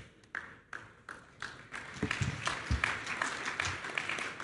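Audience applauding: a few scattered claps at first, building to dense, steady clapping about two seconds in.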